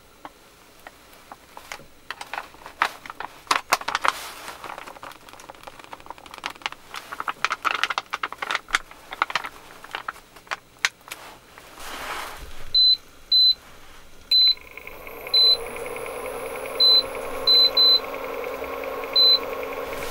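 A plastic pouch of mapo tofu sauce crinkling and clicking wetly as it is squeezed out into a frying pan, for about twelve seconds. Then an induction cooktop's control panel beeps eight times as its buttons are pressed, and the cooktop starts up with a steady electric hum and fan noise.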